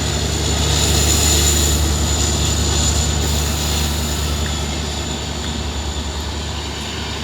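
Humming of a WDP-4D diesel-electric locomotive's EMD 16-710 two-stroke V16 engine under load as the train accelerates away, a steady low drone slowly fading.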